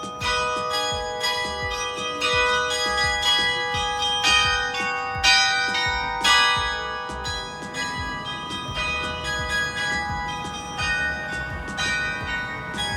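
Large tower bells rung in changes, one bell struck after another every half second or so, their ringing tones overlapping. The ringing eases a little near the end.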